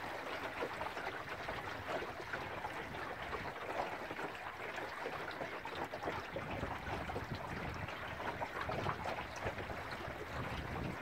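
Water chuckling and splashing along the bow of a small wooden sailing dinghy under way. Low wind rumble on the microphone builds in the second half.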